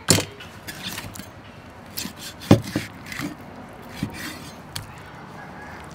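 A cleaver chopping through a raw whole chicken on a thick wooden chopping block: a series of sharp knocks, the loudest about two and a half seconds in, with softer cutting and scraping sounds between them.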